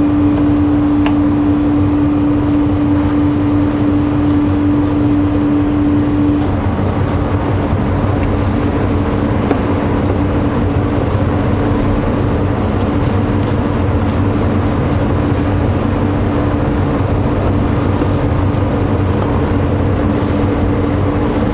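Steady machine drone with a constant hum that drops in level about six seconds in, over a low rumble. Faint ticks of a knife scoring lamb skin on a cutting board come through in the second half.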